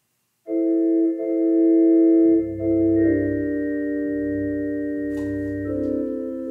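Organ starts playing a hymn introduction suddenly about half a second in: held chords that change every second or so, with a pulsing bass line coming in about two seconds in.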